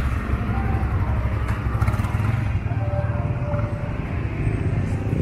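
Motorcycle engine running as it passes close by, over a steady low rumble of street traffic.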